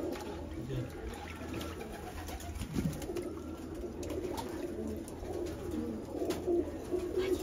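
Domestic pigeons cooing steadily, with faint splashing of water in a bucket as a pigeon is held and dipped in a medicated bath against lice and mites.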